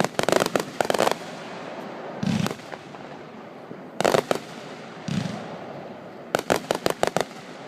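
Aerial fireworks going off. A cluster of sharp bangs comes at the start, then a deeper boom, a loud single bang about four seconds in, another deeper boom, and near the end a quick rattle of about eight crackling reports.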